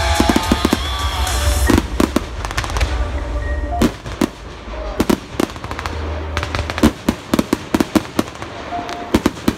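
Fireworks display: aerial shells bursting with sharp bangs and crackles in quick, irregular succession.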